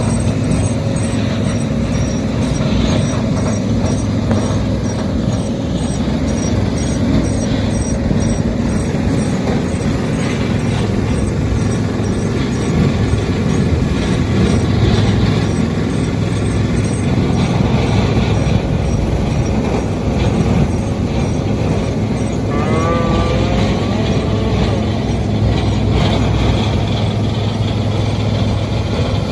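Tractor engine running steadily under load while bedding bales are handled. About two-thirds of the way through, one of the cattle moos once over the engine.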